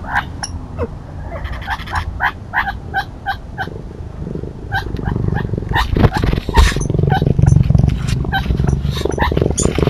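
A bobcat rubbing and scratching against the trail camera: loud scraping and bumping right at the microphone from about four seconds in. Before that comes a run of short chirping calls, about three a second.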